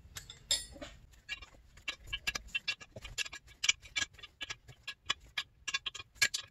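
Steel open-end wrench clicking against the nuts on a crankcase stud as they are turned: a quick, irregular run of light metallic clicks.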